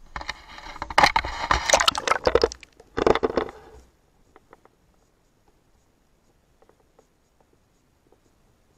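An action camera being plunged into a river on a selfie stick: for about four seconds water splashes and rushes over its microphone with crackling knocks. Then the sound goes very quiet and muffled, with only faint scattered ticks, as the camera sits underwater.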